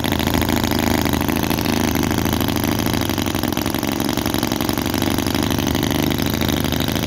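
Microcosm R28 4.3 cc 45-degree V-twin model gasoline engine running steadily, with a rapid, even firing.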